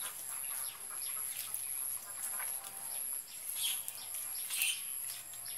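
Birds chirping now and then in the background, a few short high calls, over a faint steady high whine and the soft rustle of hands kneading leaves in a wet cloth.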